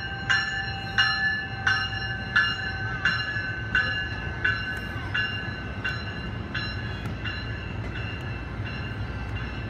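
EXO bilevel commuter train rumbling along the platform as it pulls out, with a bell dinging steadily about three times every two seconds, the dings growing fainter until they are barely heard near the end.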